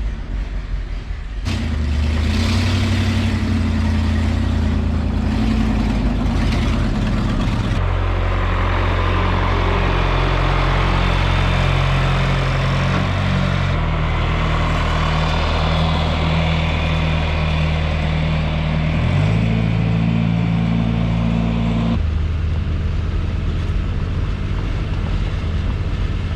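A vehicle engine running steadily, its pitch shifting in steps several times as its speed changes.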